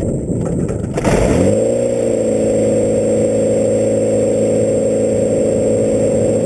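Comet FK12 biplane's engine starting: it catches about a second in, rises briefly in pitch, then settles into a steady idle.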